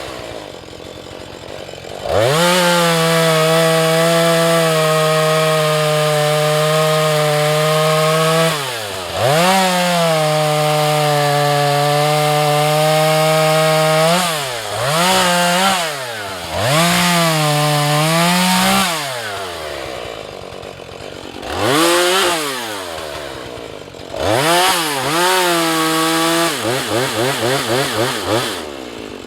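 Husqvarna 435 two-stroke chainsaw cutting wood. It is held at full throttle through two long cuts of several seconds each, then revved up and down in shorter bursts, dropping back toward idle in between.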